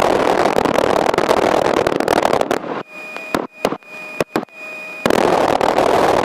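Loud crackling hiss on the plane's headset intercom audio, cutting in and out abruptly: a microphone's squelch opening on noise, with a faint steady electronic whine in the gaps.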